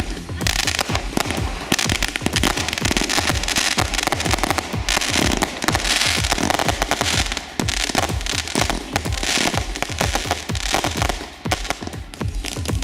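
Consumer fireworks going off: dense crackling and rapid bangs that carry on without a break, over dance music with a steady beat.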